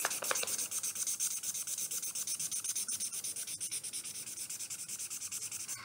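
Green felt-tip marker colouring back and forth on sketchbook paper: a steady run of quick, even strokes, many to the second.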